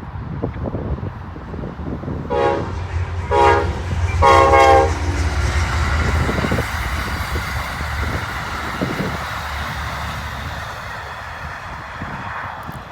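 Amtrak passenger train passing close by, its horn sounding two short blasts and then a longer, louder third a few seconds in, over the low rumble and clatter of the locomotive and cars, which fade over the last few seconds.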